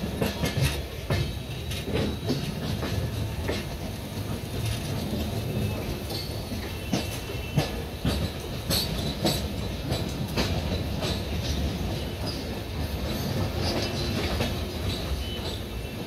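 Passenger train coaches running through a railway yard: a steady low rumble of the wheels on the rails, broken by irregular clacks as the wheels cross rail joints and points.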